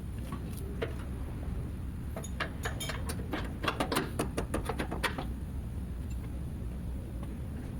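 Metal hand tools clicking and clinking in a quick run of sharp clicks lasting about three seconds, starting about two seconds in, over a steady low hum.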